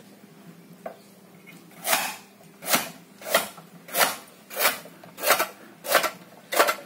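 Hand-lever vegetable cutter's high-carbon steel blade chopping through several carrots at once onto a cutting board. It makes a steady run of about eight chops, roughly three every two seconds, starting about two seconds in.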